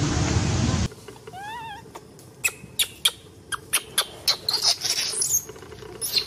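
A loud noisy stretch cuts off about a second in. Then a baby macaque gives one short wavering call, followed by a quick run of sharp, high-pitched squeaks and squeals: the distress cries of an infant being held and handled roughly.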